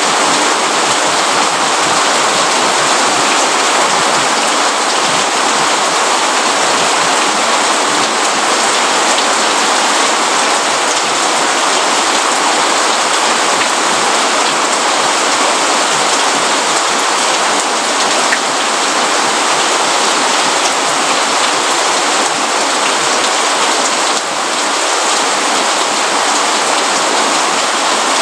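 Steady rain falling: a dense, even hiss of many drops that stays level throughout.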